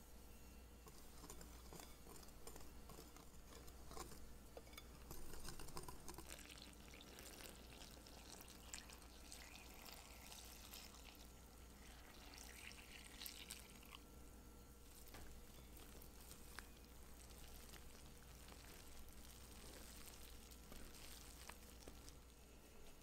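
Faint kitchen mixing sounds in a glass bowl: a wire whisk stirring dry gluten-free flour, and around the middle a stream of water poured into the flour.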